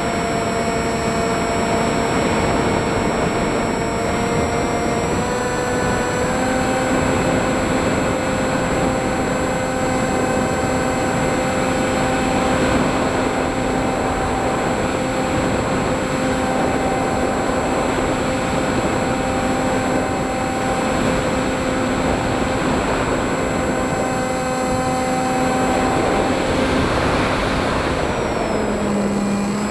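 Electric motors and propellers of an FPV aircraft in flight: a steady multi-tone whine over rushing air noise. The pitch steps up about six seconds in and shifts again near the end.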